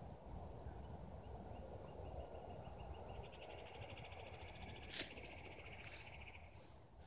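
A small songbird's rapid, high-pitched trill, faint at first and growing stronger for about three seconds before stopping shortly before the end. It sits over a low, steady rumble, with one sharp click about five seconds in.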